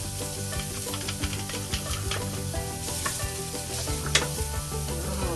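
Ginger and onions frying and sizzling in a pan, with a utensil scraping and clicking against the pan as they are stirred.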